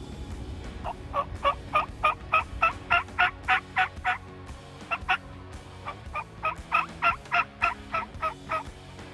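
Turkey yelping: two runs of about a dozen evenly spaced yelps each, roughly three a second, with a short pause between the runs.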